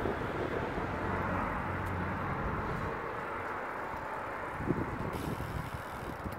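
Steady rushing wind and road noise from a bicycle rolling along tarmac, with a low rumble and one brief knock a little under five seconds in.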